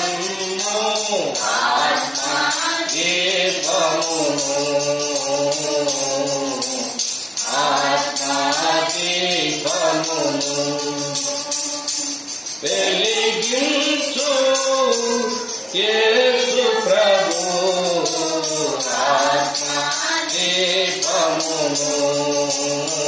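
A Christian hymn sung by a group of voices in phrases of a few seconds, with a tambourine jingling in a steady beat.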